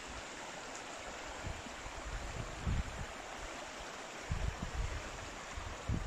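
Shallow stony stream running over rocks: a steady babbling rush of water, with a few brief low rumbles.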